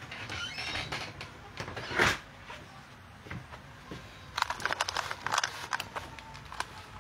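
Scattered knocks and clicks, the loudest a single thump about two seconds in, then a quick run of taps and clicks about four and a half seconds in as the phone is handled up close.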